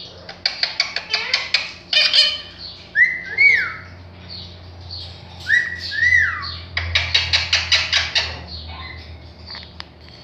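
Indian ringneck parakeet calling: two bursts of fast, clicking chatter, with twice a clear two-note whistle that rises and falls between them.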